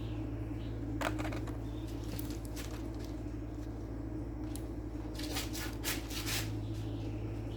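Hands working a defrost heater element onto a refrigerator's metal evaporator plate: scattered scraping and crinkling handling noises, in clusters about a second in, around the middle, and more densely near the end, over a steady low hum.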